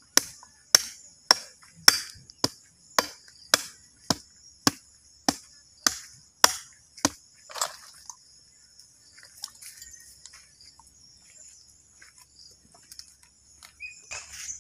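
A heavy cleaver chopping into a cow's head, about fourteen even strokes a little under two a second, stopping about halfway through. A steady high drone of insects runs underneath.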